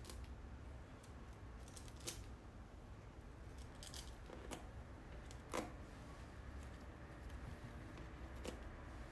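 Faint, scattered clicks and taps of hands working gold leaf onto a stretched, painted canvas, about six in all, the loudest about five and a half seconds in, over a low steady hum.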